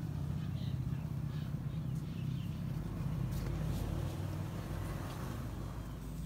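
Low, steady engine rumble, a little louder around the middle and easing off toward the end.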